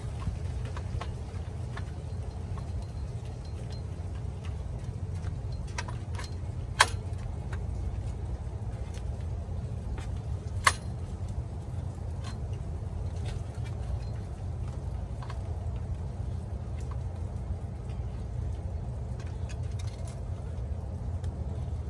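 Light metallic clicks and taps as a replacement distributor is worked down into its bore by hand. Two sharp clicks stand out, about 7 and 11 seconds in, over a steady low rumble.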